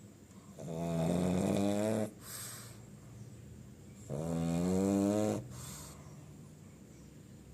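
Pug snoring in its sleep: two long, buzzing snores about three and a half seconds apart, each followed by a short hiss of breath.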